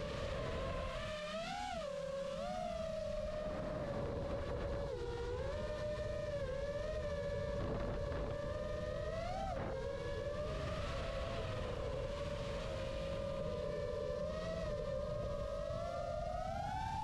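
FPV quadcopter's brushless motors whining, the pitch swooping up and down with throttle over wind rumble. Near the end the whine climbs and then cuts off suddenly.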